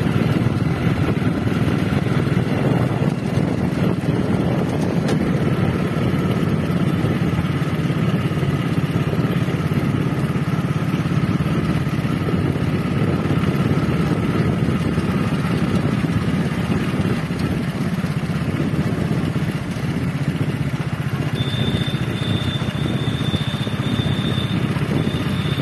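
Motorcycle engine running steadily at road speed, with a thin, steady high tone joining in about 21 seconds in.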